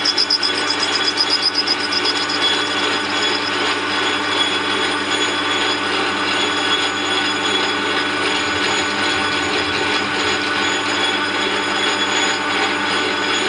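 Metal lathe running steadily with a constant gear whine while its tool faces the end of a spinning PVC workpiece, cutting plastic swarf. A rapid fluttering in the first couple of seconds settles into an even running sound.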